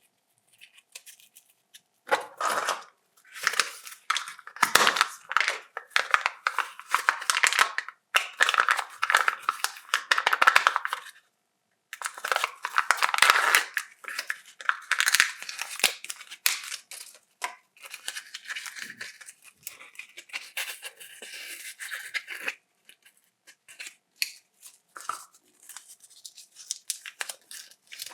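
Chocolate-egg wrappers being torn open and crinkled by hand, in bursts of crackling with short pauses, for most of the stretch.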